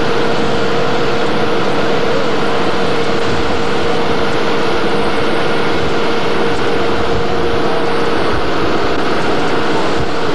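Motorboat engine running steadily while under way, a constant drone with one held tone that does not change.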